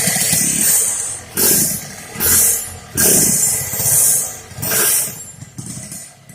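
Yamaha RX-King's two-stroke single-cylinder engine revved in a string of short throttle blips, roughly one every second, dropping back between them.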